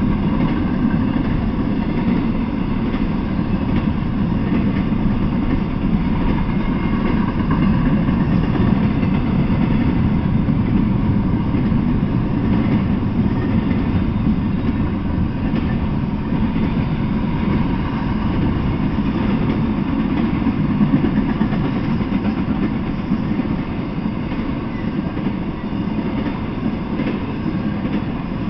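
Intermodal freight train cars (double-stack container well cars and trailer-carrying flatcars) rolling past on the rails, a steady, unbroken rolling noise.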